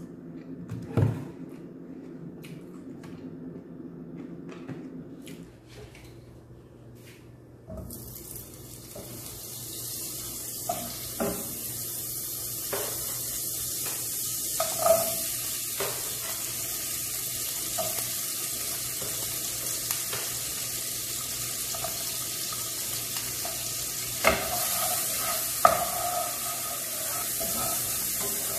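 A single knock about a second in. Then, from about eight seconds, a steady sizzle of butter frying in a nonstick pan, with taps and scrapes of a wooden spoon stirring the pan, several of them louder near the end.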